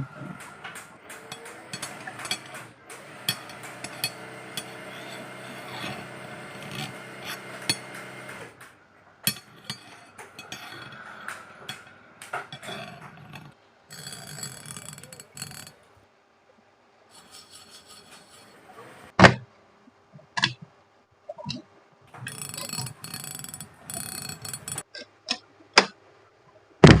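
Sewing machine mechanism running with a steady hum and rapid clicking for about eight seconds, then stopping; after that, short stretches of running, scattered clicks and a few sharp knocks.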